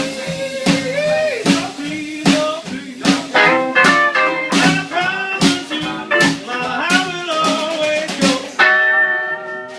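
Small band playing blues live, led by guitar with quick plucked notes and bent notes over a drum kit, ending on a held chord.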